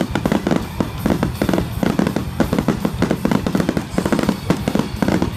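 Fireworks finale barrage: many shells bursting in rapid, overlapping bangs and crackles with no pause, over music playing in the background.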